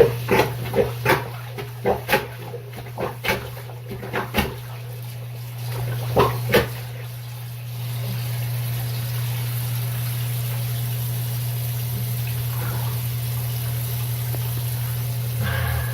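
Sink plunger working a water-filled bathroom sink basin: a series of wet sucking pops and gurgles as it is pushed down and pulled up over the first several seconds. Then a steady water sound as the cleared drain empties, with a low hum underneath.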